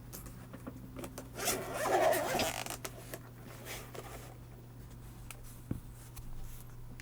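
Typing on a KBDFANS Tofu65 mechanical keyboard with a brass plate and Gateron GoldCap V2 linear switches: scattered keystrokes, with a quick flurry of fast keystrokes between about one and a half and two and a half seconds in.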